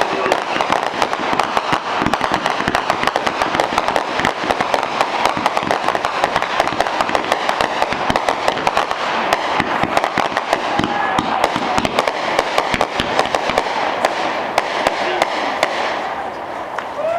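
Fireworks display: a dense, continuous barrage of bangs and crackling from many aerial shells and water-level fountains going off together, thinning out near the end.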